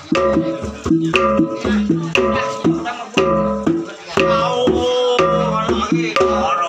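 Rhythmic music: a melody of steady, stepping notes over regular percussion strikes, several beats a second.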